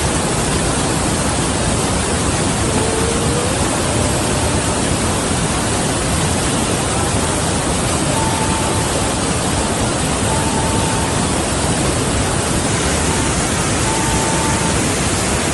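Loud, steady rush of the flooding Manjira River's water flowing past the temple, an unbroken roar of noise without change.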